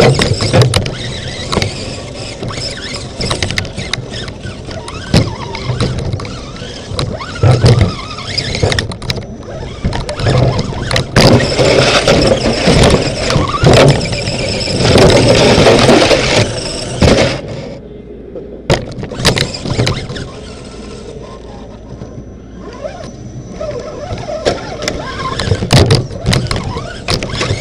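RC rock crawler driving, its electric motor and gears whining, with frequent knocks and rattles, heard from inside the plastic body shell. It goes quieter for a moment about two thirds of the way through, then picks up again.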